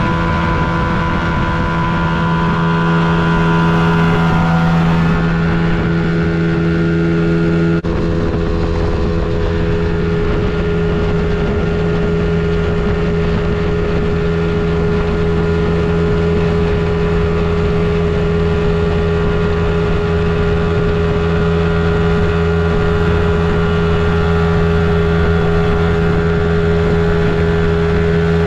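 Johnson 50 hp outboard motor running steadily at high speed, with the rush of the boat's wake and spray. The engine note holds an even pitch throughout, with one brief jump in the sound about eight seconds in.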